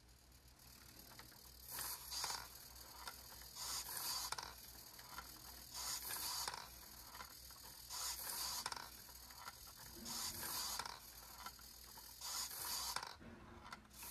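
Small SG90-type micro servos buzzing in six short bursts, about every two seconds, as they move the 3D-printed robot golfer's arms and putter.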